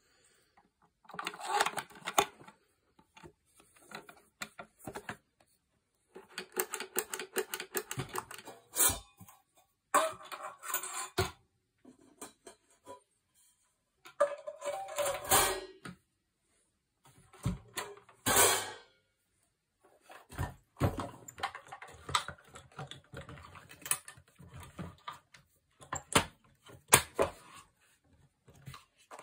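Homemade suitcase drum kit being worked by hand: its wooden pedal-and-rod mechanism, a pair of cymbals and a felt beater clatter, rattle and knock in irregular bursts, with a few sharp single strikes.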